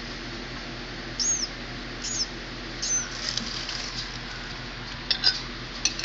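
Nestling bird giving three thin, high peeps about a second apart, each rising and then falling, followed by a few light clicks near the end.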